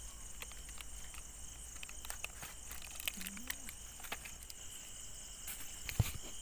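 Faint, steady chirring of night insects, with scattered light clicks and scuffs of hands and small objects on a concrete slab, and a low thump near the end.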